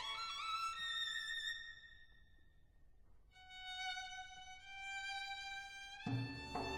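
Solo violin playing unaccompanied: slow phrases with vibrato, a short hush, then long held notes. Near the end the low accompaniment comes in underneath with sustained notes.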